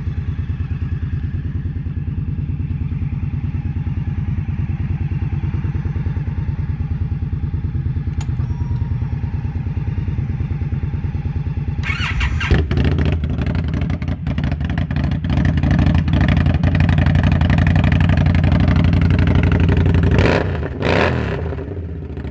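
Indian Scout V-twin motorcycle engine idling with an even beat. About twelve seconds in it turns louder and rougher, and a brief change in revs comes near the end.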